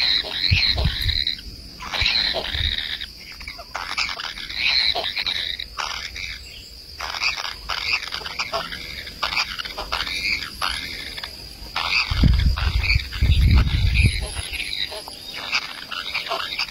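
Kingfisher chick's harsh begging calls, short and rapid, coming in runs over a steady high hiss, with low rumbles about twelve and fourteen seconds in.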